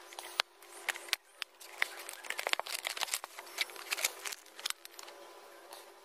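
Cardboard product box being opened by hand and its plastic inner tray handled: irregular crinkling, scraping and light clicks of card and plastic.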